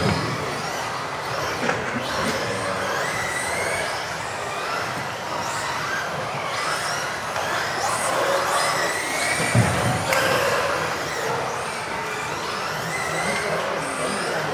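Several electric RC off-road buggies racing, their motors whining up and down in pitch as they accelerate and brake, over a steady hiss. A short low thump about nine and a half seconds in.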